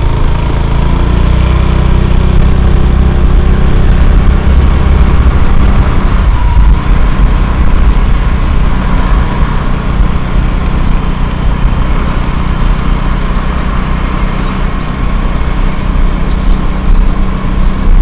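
Small motorcycle engine running steadily while riding, with a low, even rumble.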